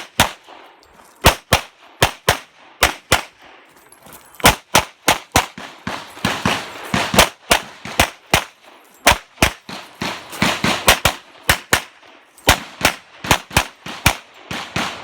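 A handgun firing rapidly through a timed practical-shooting match stage: shots come in quick pairs and fast strings, with brief pauses about four seconds in and again near twelve seconds.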